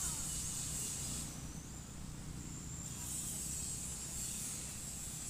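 Steady outdoor noise: a high hiss that thins out for about a second and a half near the middle, over a constant low rumble like wind on the microphone.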